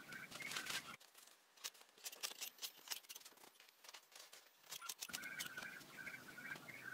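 About four seconds of quick, light clicks and scrapes, the loudest sounds here, between short runs of a small bird's repeated chirping at the start and near the end.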